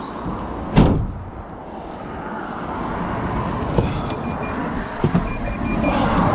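Van door slammed shut about a second in, then a few lighter knocks and a faint intermittent beeping.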